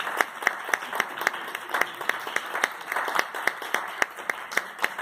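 Audience applauding, with one set of sharp, distinct claps standing out over the rest at about four claps a second.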